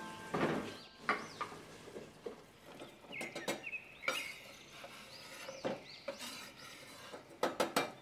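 Chunks of chopped squash scraped off a wooden cutting board with a knife and dropping into a stainless steel pot: a scatter of knocks and clatters, with a quick burst of them near the end. Birds chirp in the background.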